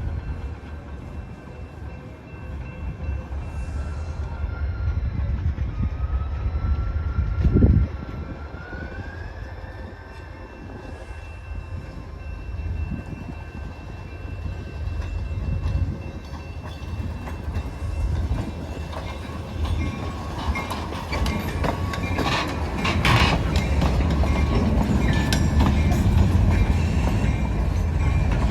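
Approaching CSX freight train at a grade crossing: a steady low rumble, with one loud thump about eight seconds in and a growing clatter of clicks and knocks over the last ten seconds.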